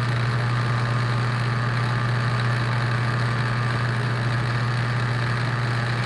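Hotpoint dishwasher's motor pump assembly running in the drain cycle with a steady low hum: the drain solenoid is energized, holding the diverter down so the pump sends the water out the drain line.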